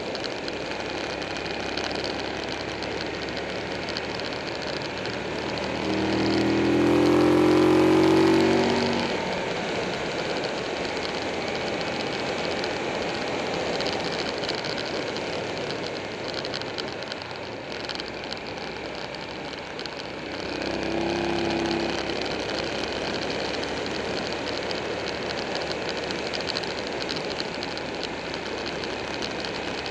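Buell 1125R's V-twin engine running under way over steady wind and road rush. About six seconds in, the revs climb and the engine grows loud as the bike accelerates for a few seconds, and it rises again more briefly about twenty-one seconds in.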